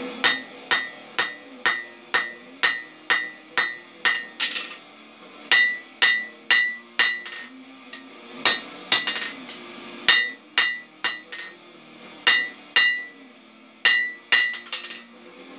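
Ball-peen hammer striking a red-hot steel bar on an anvil, quick blows about two a second, each with a clear metallic ring. The blows come in runs of two to ten with short pauses between them.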